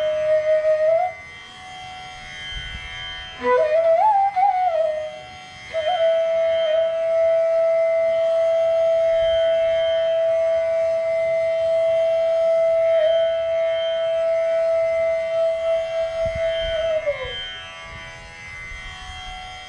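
Bamboo bansuri flute playing slow phrases of raag Patdeep over a steady drone: a short held note, a quick ornamented phrase, then one long note held about eleven seconds that slides down and stops near the end, leaving only the drone.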